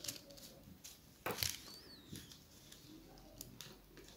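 Faint handling of a paper pattern sheet on a tabletop: soft paper rustles and light taps, with one louder rustle about a second and a half in.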